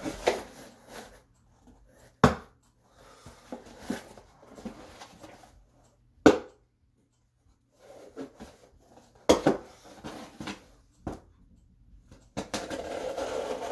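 A short plant-cutting knife stabbed into a cardboard box again and again: sharp punctures a few seconds apart, with the cardboard rustling as it is handled between strikes. Near the end a longer scraping as the blade is worked through the cardboard.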